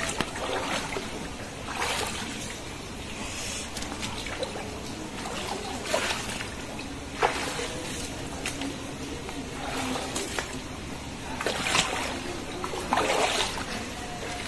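Feet wading through floodwater, each step splashing and sloshing, about one every one and a half to two seconds over steady water noise.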